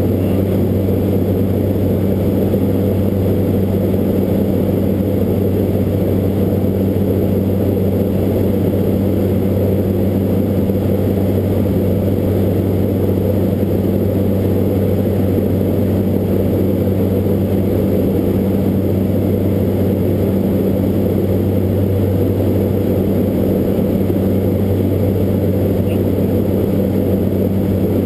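Beech 1900D's twin Pratt & Whitney PT6A-67D turboprop engines and propellers, heard from inside the cockpit as a steady, unchanging drone with a low hum.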